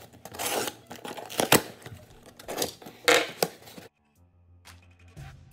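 Hands handling a taped cardboard shipping box: irregular rustling scrapes and a few sharp taps. The sound stops abruptly a little before four seconds in, and soft music begins near the end.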